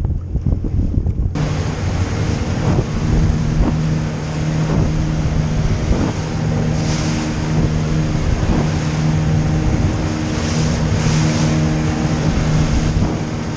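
A boat's outboard motor running at a steady speed under way, a steady hum, with wind buffeting the microphone and water rushing past the hull. For about the first second and a half only the wind is heard, before the motor comes in.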